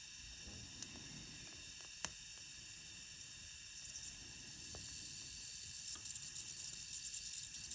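WD-40-soaked exhaust manifold nut sizzling as it is heated, over a faint steady hiss. There is a click about a second in and another about two seconds in. Irregular crackling builds from about halfway through.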